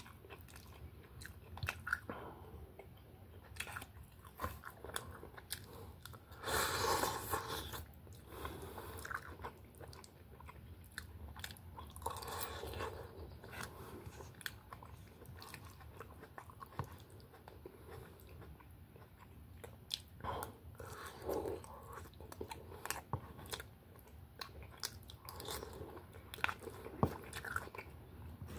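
A man eating stir-fry with rice close to the microphone: chewing and biting, with many short clicks and two louder noisy stretches about 7 and 12 seconds in.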